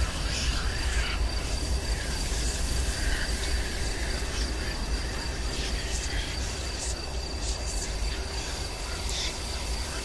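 Haunted-house night ambience: a deep low rumble under a steady high cricket-like trill, with scattered short high chirps.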